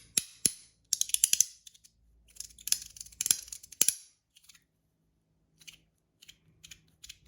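Zirconium mini haptic coin being fidgeted, its magnetic pieces snapping together in sharp clicks. A few single snaps come first, then rapid loud clusters over the next few seconds, then sparser, fainter clicks.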